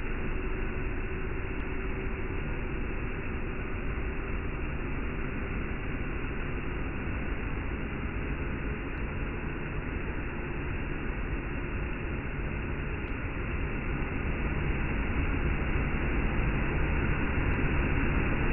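Hoover S3639 WindTunnel Plus canister vacuum running steadily, heard slowed down from slow-motion footage, so its motor and airflow come through as a deep, dull noise. It grows a little louder in the last few seconds.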